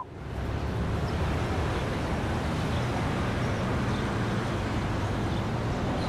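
Steady city traffic ambience, a continuous low rumble of passing vehicles, fading in over about a second after a short sharp click at the very start.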